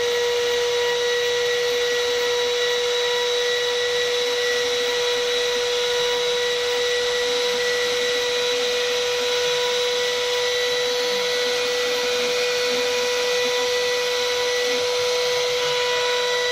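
LCHI 6090 CNC router's spindle running at a steady high whine while its bit mills a 3 mm acrylic sheet, with a hiss from the cut.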